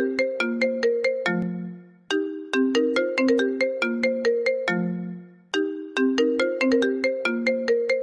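Phone ringtone melody: a quick run of bright, struck-sounding notes that ends on a held low note, the phrase repeating about every three and a half seconds.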